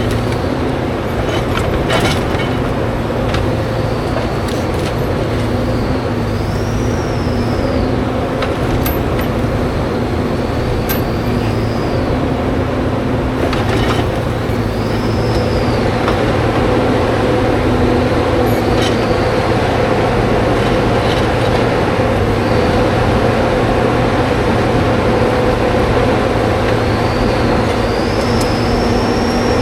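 Diesel engine of a Timberjack 608 tracked logging machine running steadily under work, heard from inside the cab. A high whine rises and falls again and again as the hydraulics work the cutting head, with a few sharp clicks.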